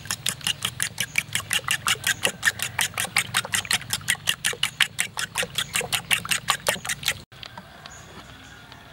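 Metal spoon beating duck eggs in a bowl: fast, even clicking strokes of the spoon against the bowl, about six a second, which stop abruptly about seven seconds in.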